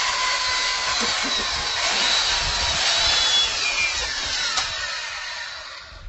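Hand-held electric power tool running on metal: a steady high whine over hiss. The pitch sags in the middle and the sound eases off and stops near the end.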